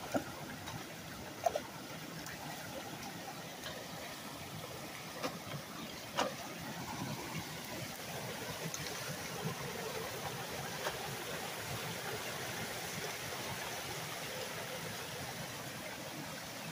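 Water running steadily into a culvert that is partly blocked by a beaver's packed sticks and gravel. A few sharp knocks and splashes come in the first six seconds or so, as a long-handled hand tool scrapes at the blockage.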